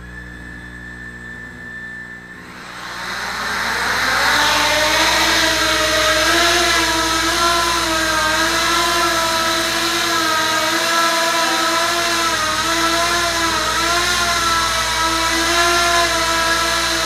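Small racing quadcopter's four motors and propellers spool up with a rising whine about three seconds in. They then hold a loud, steady buzzing whine whose pitch wavers as the throttle is trimmed to hover.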